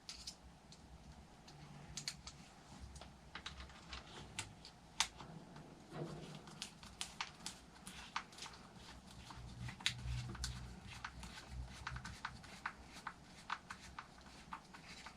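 Faint, irregular small clicks and taps of metal bolts and hand tools as engine mounting bolts are fitted by hand, with some soft handling bumps.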